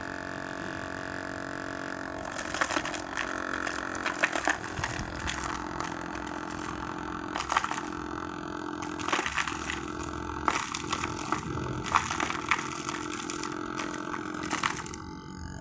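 Rotavator running steadily, its tines churning through soil, with frequent sharp clicks and knocks from about two seconds in as clods and stones strike the blades.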